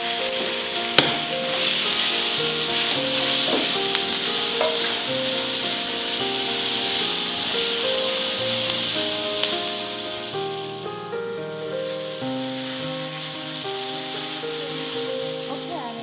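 Sliced mushrooms and onion sizzling steadily in hot oil in a skillet. Background music with a slow melody of held notes plays over the frying, and a sharp click sounds about a second in.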